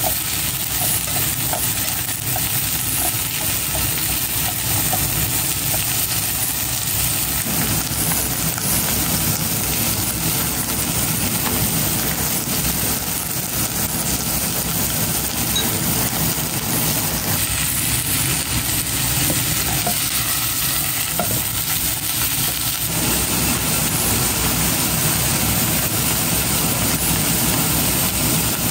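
Cabbage, bean sprouts and carrot sizzling as they stir-fry in a pan over a gas burner, a steady dense hiss throughout. A handheld blowtorch searing a slice of chashu pork adds its rushing hiss to the mix.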